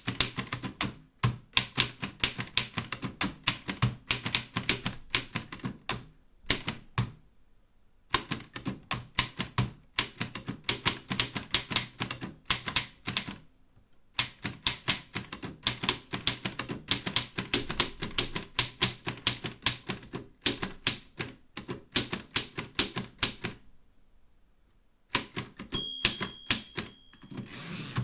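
Erika 5 manual typewriter being typed on: quick runs of key strikes broken by short pauses. Near the end the margin bell rings once, and a longer sweeping sound follows as the carriage is returned.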